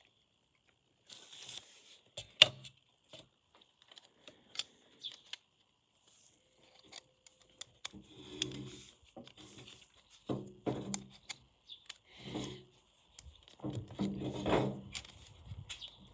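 Plastic parts of a Logitech M185 wireless mouse being handled and fitted back together: scattered clicks, taps and scrapes of small plastic pieces. The sharpest click comes about two and a half seconds in, and the handling noises grow busier in the second half.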